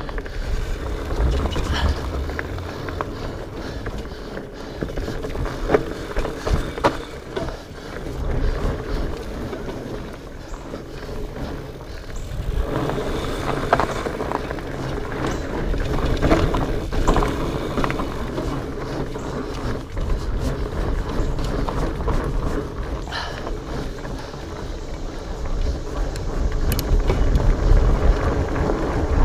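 Specialized Fatboy fat bike ridden over a rocky trail: the tyres rolling and the bike rattling over rocks and roots, with scattered sharp knocks. A steady low rumble of wind and motion runs under it.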